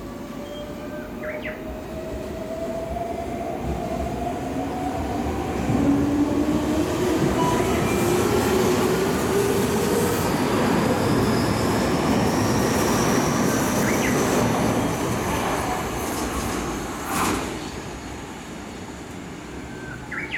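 Electric commuter train pulling out of the station: its inverter-driven traction motors whine in several tones that rise steadily in pitch as it accelerates, over the rumble of wheels on rail. A few clacks from the wheels over rail joints, one louder about 17 seconds in.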